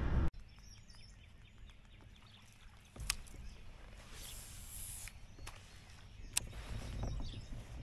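Quiet ambience on a calm lake from a kayak, with a few sharp clicks about three, five and a half and six and a half seconds in, and a brief hiss in between.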